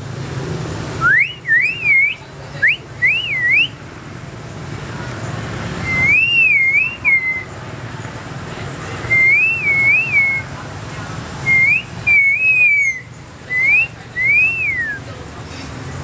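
Common hill myna whistling: five short phrases of clear, looping whistles that swoop up and down, some in double humps, the last gliding downward.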